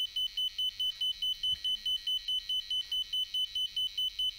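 Microcontroller board's buzzer sounding a burglar-alarm pattern: rapid high-pitched beeps, about five a second, one steady tone. It carries on unbroken, because the doorbell button press does not stop or interrupt the burglar alarm.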